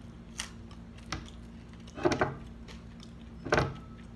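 A few short knocks and clicks of tableware being handled while eating, the loudest about two seconds in and again about three and a half seconds in.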